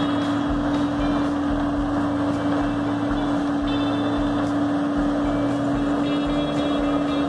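Pellenc self-propelled grape harvester running as it works along a vine row, a steady machine hum with a constant tone and low pulsing about twice a second.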